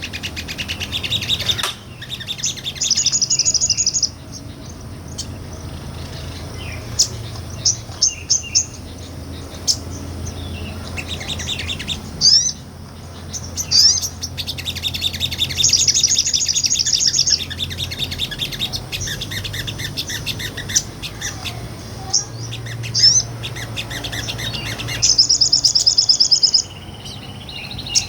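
A sogon, a small nectar-feeding songbird, singing in rapid, high-pitched trilled bouts of evenly spaced notes lasting a second or two each. Short single sharp chips fall between the bouts.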